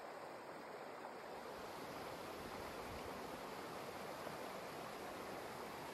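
Mountain stream rushing over rocks: a faint, steady hiss of flowing water, slightly louder after the first second or two.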